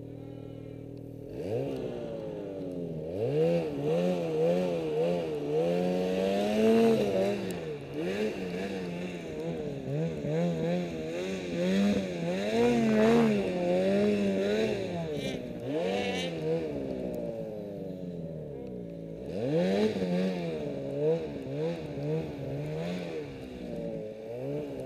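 Snowmobile engine idling. About a second in it revs up, then keeps running under constantly changing throttle while riding through deep powder, its pitch rising and falling over and over. It eases off briefly about three-quarters of the way through and picks up again.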